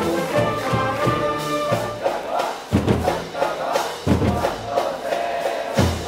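High school brass band playing a baseball cheering song: trumpets, trombones, euphoniums, clarinets and saxophones on the melody, with heavy bass drum thumps in the second half and a crowd of voices chanting along.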